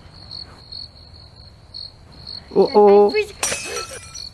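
Crickets chirping steadily, a high chirp repeating a few times a second. About two and a half seconds in, a person's voice makes a short sound, followed by a brief burst of noise.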